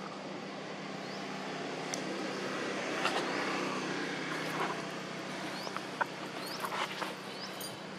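Steady low motor-vehicle engine hum that swells to a peak about three seconds in and then eases, with a few short rising high squeaks and sharp clicks over it.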